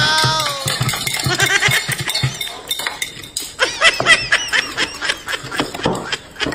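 A falling, pitched comic tone at the start, then a quick run of high-pitched laughs at about five a second, over the clink of chopsticks on ceramic bowls and plates.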